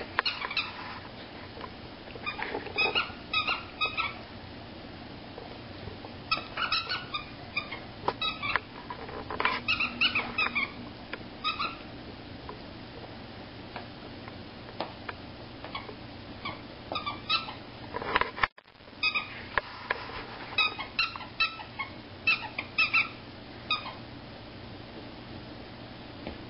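Corgi puppy chewing and gnawing on a plush giraffe toy, with bunches of short wet chewing and biting noises broken by brief pauses.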